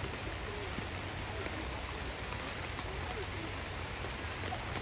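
Heavy downpour of rain, a steady hiss of rain falling.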